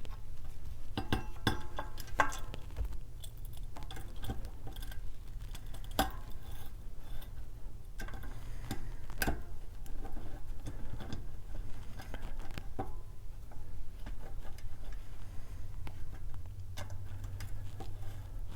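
Light metallic clicks and clinks, scattered at irregular intervals, as a 6-bolt disc brake rotor and its bolts are handled and set onto a bicycle wheel hub, over a low steady hum.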